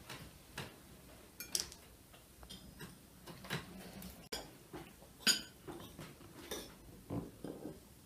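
Scattered clinks and scrapes of cutlery on plates as cake is served and eaten, with sharper clinks about a second and a half in and again just past five seconds.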